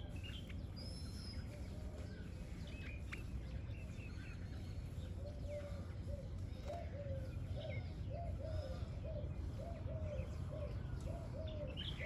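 Scattered chirps and calls of small birds at a seed-feeding spot. From about halfway there is a run of short low calls repeated about twice a second, over a steady low background rumble.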